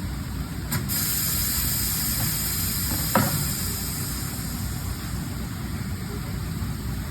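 Pedal-operated tire changer: a click, then compressed air hissing for about three seconds as its rim clamps move, with a single clunk partway through, over a steady low hum.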